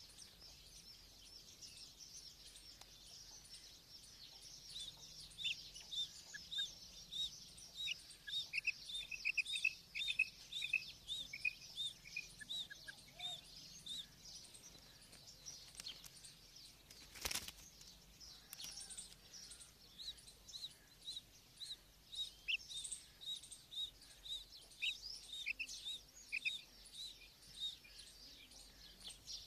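Caged female quail calling in quick series of short, high chirps, pausing for a few seconds in the middle before starting again. A single sharp click sounds about seventeen seconds in.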